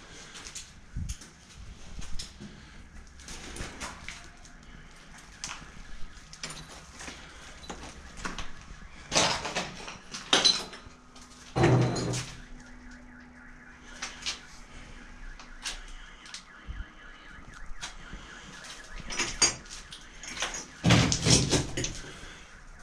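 Footsteps crunching over rubble and broken plaster on a hard floor, with scattered knocks and clicks. The louder crunches come in three bunches: about nine seconds in, about twelve seconds in, and near the end.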